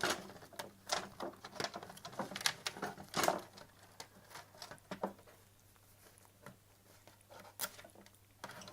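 Irregular light clicks, taps and rustles from small plastic scanner parts and a flat cable being handled and pried loose. They are busiest in the first five seconds and sparse after that.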